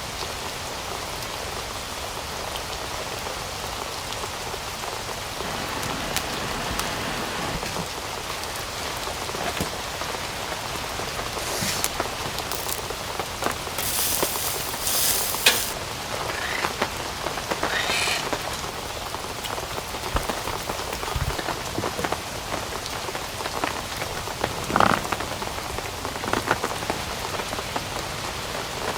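Steady rain falling on a surface, with a few brief louder noises partway through.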